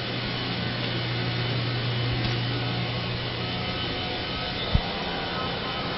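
A steady mechanical drone with a low hum that fades out near the end, broken by a single short knock about three-quarters of the way through.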